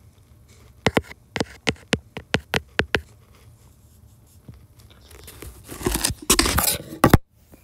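Stylus tip tapping on a tablet's glass screen while short dashes are drawn: a run of about nine quick taps, three or four a second. Near the end, a louder rubbing scrape for about two seconds that stops suddenly.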